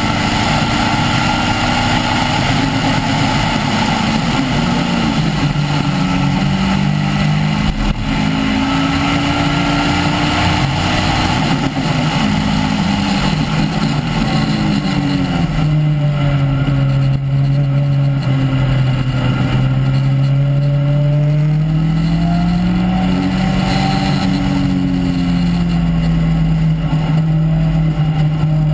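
Caterham R300's four-cylinder engine through an un-silenced exhaust, heard from the open cockpit at full track speed, its note rising and falling as it revs through the gears and backs off for corners, dipping lowest a little past halfway and then climbing again. A steady hiss of wind and tyre noise lies under it.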